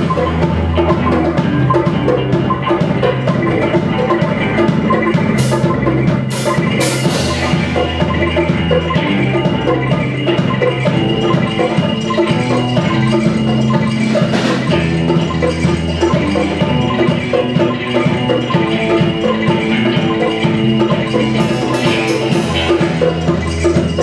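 Live instrumental band music: electric guitar, keyboards and drums over a repeating low bass line, with a few sharp crashes.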